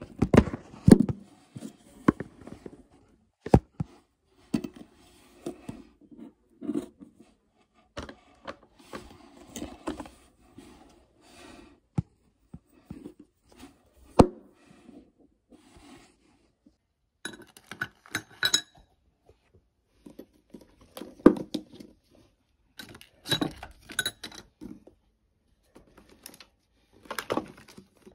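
Glass nail polish bottles and other small items clinking, tapping and rattling irregularly as they are handled and set into plastic bins in a drawer. Sharper, ringing glass clinks come in clusters in the second half.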